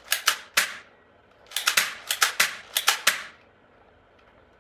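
Toy gun firing a string of about ten sharp snapping shots: three in quick succession at the start, then three quick pairs over the next second and a half.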